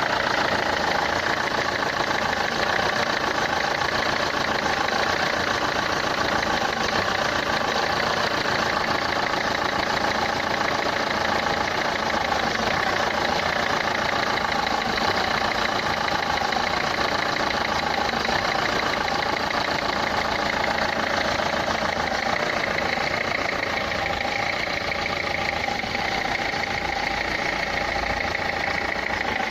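Renault Clio III 1.5 dCi four-cylinder turbodiesel idling steadily with a fast, regular ticking knock, a noise the title places in the injectors.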